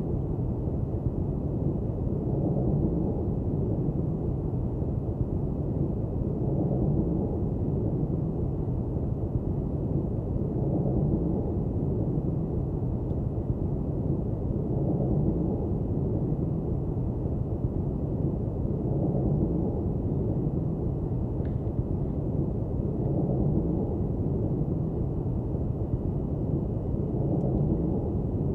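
Infrasound recording from the Ravne tunnels, an original signal of about 7 Hz shifted two octaves up to about 28 Hz and played as a loop: a steady low rumbling hiss that swells about every four seconds.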